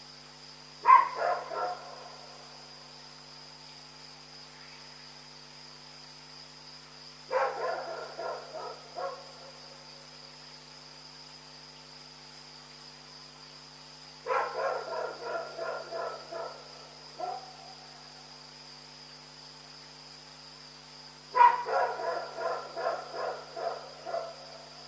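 A dog barking in four bursts of quick repeated barks, about seven seconds apart, the later bursts longer with more barks.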